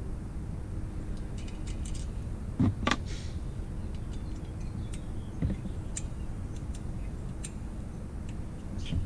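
Scattered light metallic clicks and ticks of hand tools and small engine parts being handled during a two-stroke motorized-bicycle engine teardown, with two louder knocks close together about three seconds in.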